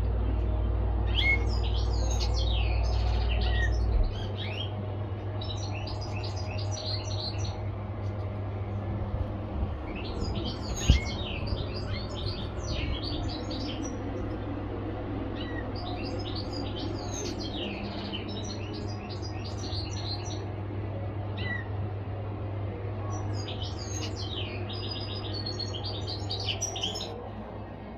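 Caged finches chirping and twittering in short bouts every few seconds over a steady low hum, with one sharp click about eleven seconds in.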